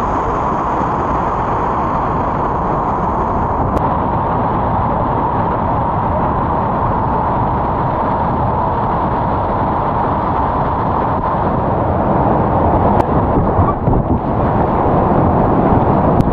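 Loud, steady rushing roar of a whitewater rapid, heard close up. Near the end it grows louder and more uneven as the kayak moves through fast, churning water, with a few faint clicks.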